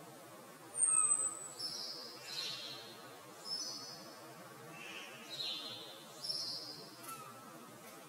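Small garden birds calling: a thin, high whistle falling in pitch about a second in, the loudest sound, then several short high chirps and twitters through the rest, over a faint steady outdoor hiss.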